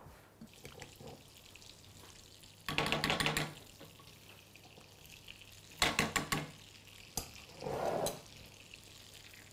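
Butter sizzling faintly in a frying pan, broken by three short bursts of clatter and stirring from a wooden spoon as pepper and tomato paste is added to the melted butter.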